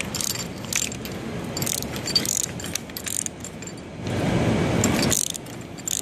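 Hand tubing cutter being turned around a copper refrigerant line: a run of short scraping clicks, several a second. A louder low rush lasts about a second from about four seconds in.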